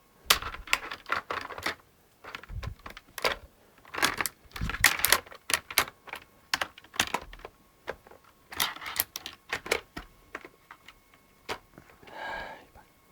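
Keys tapped on an old laptop's keyboard in irregular bursts of sharp clicks with short pauses between, then a brief buzzing tone near the end.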